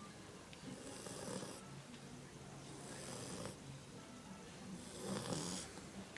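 Red-nose pit bull snoring in its sleep: three snoring breaths about two seconds apart, each a noisy rush with a hiss on top.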